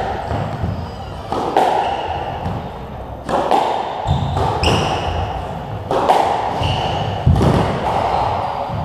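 Squash rally: the ball struck by rackets and smacking off the court walls, a sharp hit about every second, each ringing briefly in the enclosed court. Short shoe squeaks on the wooden floor come between the hits.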